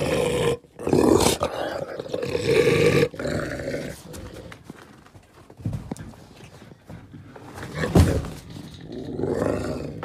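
Big cat roaring in long, loud calls: two in the first three seconds and another near the end, with quieter rough sounds between and a short loud spike about eight seconds in.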